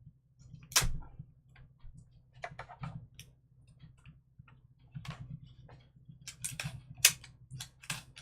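Irregular light clicks and taps as a thin metal cutting die and cardstock are handled and shifted on a craft table, with a few sharper clicks near the end.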